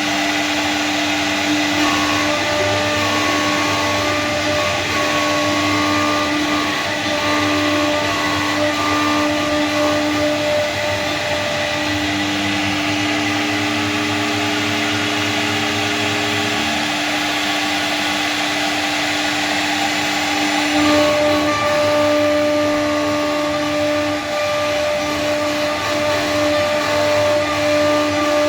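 CNC router spindle running steadily while cutting a design into PVC board: a continuous motor whine over a noise floor, with its tones shifting a few times as the cut changes.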